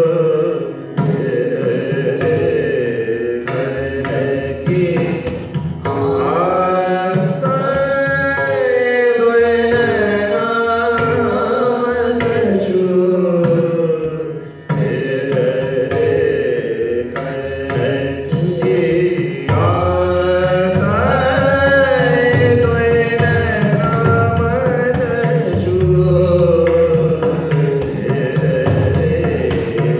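Sikh Gurbani kirtan in raag: long melodic phrases that slide between notes, carried over tabla and jori drumming, swelling around a quarter of the way in and again past the middle.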